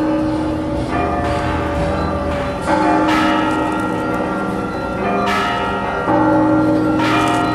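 Several large church bells struck in turn at different pitches, a new strike every second or so, each ringing on and overlapping the next.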